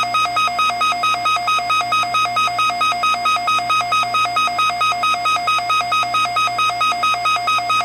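Synthesized emergency alert tone: a harsh electronic two-pitch warble, alternating rapidly between a low and a high tone several times a second, loud and unbroken.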